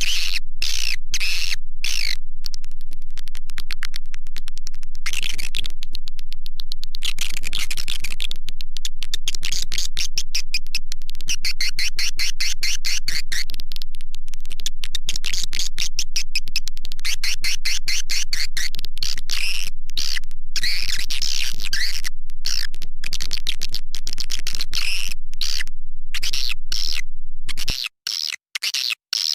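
Swiftlet lure call recording: dense, rapid trains of clicking chirps and twitters, played to call swiftlets into a nesting house. A steady low hum under it stops near the end, after which the chirps come in short separate bursts.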